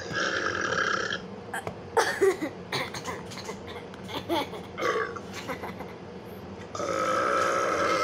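Long, loud burps: one lasting about a second at the start and another starting near the end, with short squeaky vocal noises and clicks between.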